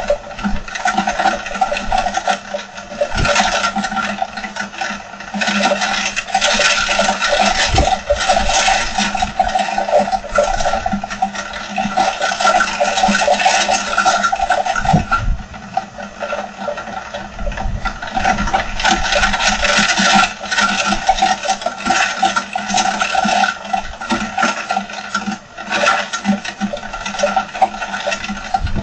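Heavy rain pouring down with wind, a dense, continuous hiss full of small patters that swells and eases every few seconds.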